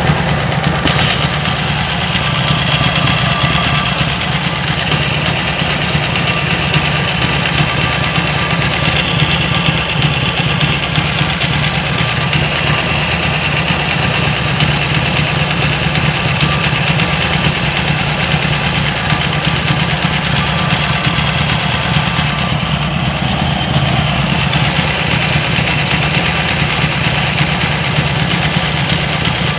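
Harley-Davidson Ironhead Sportster air-cooled V-twin engine running steadily with a mechanical noise of unknown cause. The owner says the noise is louder than the stock exhaust and is still there after an engine rebuild.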